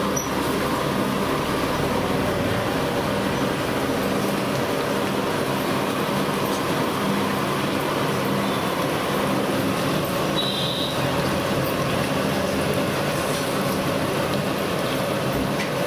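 Bonda batter deep-frying in a kadai of hot oil: a steady sizzling hiss, with a low hum underneath.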